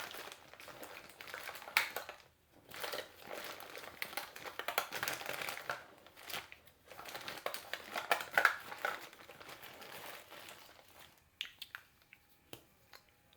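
Crinkling and rustling as makeup items are handled and rummaged through, in irregular spells with a short pause, then a few separate sharp clicks near the end.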